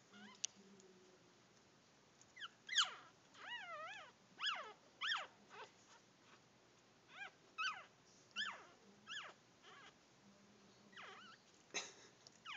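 Newborn puppy crying in a string of short, high-pitched squeals that rise and fall, from about two seconds in, with a short lull near the end. It is lying on its back, unable to roll over.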